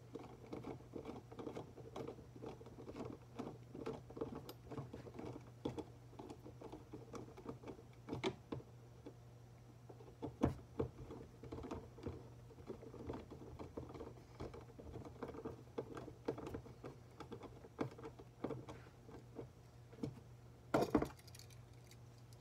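A metal hand tool scraping and clicking against wires inside a plastic electrical box in quick, irregular little taps, over a steady low hum. There is a louder clatter near the end.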